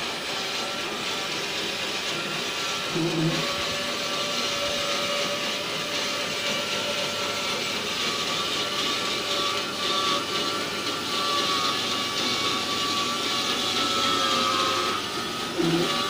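Timbery M100 portable band sawmill running and cutting through a squared log as its saw head is pushed along, a steady machine whine. A short low thump about three seconds in and again near the end.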